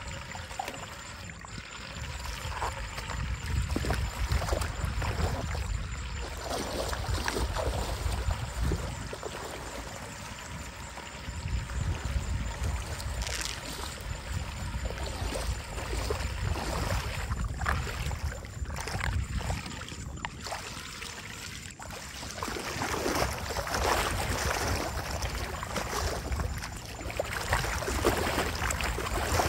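Floodwater draining down a small street drain hole, a steady trickling and gurgling. Feet splash through the shallow water in the last several seconds.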